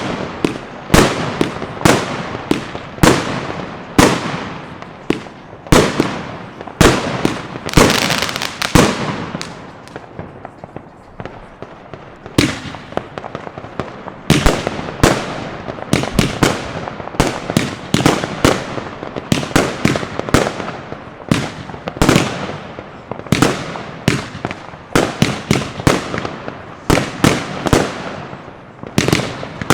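Consumer firework batteries (cakes) firing shot after shot, with sharp bangs about once a second from the ToschPyro/Geisha 'Goldstrike' battery. After a short lull about ten seconds in, Funke 'Funkenweide blau' batteries start about twelve seconds in, and the bangs come faster.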